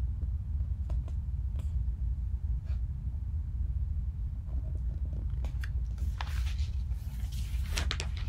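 Paperback picture book being handled, its pages rustling and ticking as they are shifted and turned, mostly in the last couple of seconds, over a steady low rumble.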